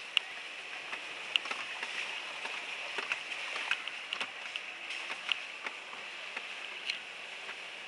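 Inside a vehicle jolting slowly over a rough, rutted dirt track: irregular clicks and knocks from the body and loose things rattling as it bumps along, over a steady hiss.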